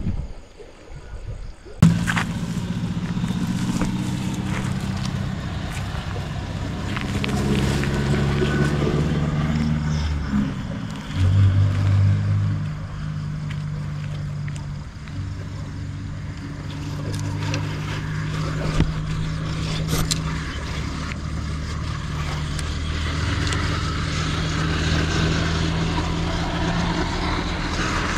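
An engine running steadily. It starts abruptly about two seconds in, and its pitch shifts a little around the middle.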